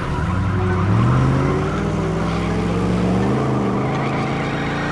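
Cartoon truck engine sound effect revving up about a second in, then running steadily as the truck strains on a tow line.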